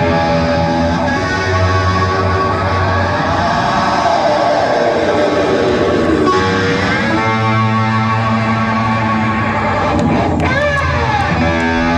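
Live hard rock band playing loudly, led by a distorted electric guitar holding sustained notes, with a sliding note about ten seconds in.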